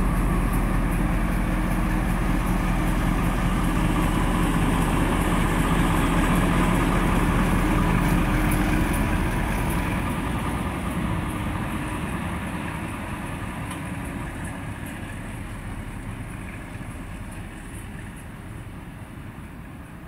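Diesel locomotive V160 002 'Lollo' (diesel-hydraulic) pulling away under power, its engine running loud and steady. After about nine seconds the sound fades steadily as it moves off down the track.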